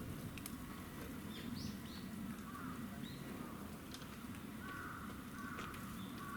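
Birds calling outdoors: a few short chirps, then a call repeated every half second or so from about four and a half seconds in, over a steady low background rumble.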